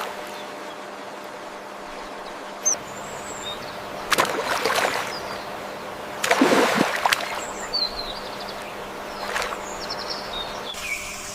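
A few short, high bird chirps over a steady background hiss, with three louder noisy swishes about four, six and nine seconds in.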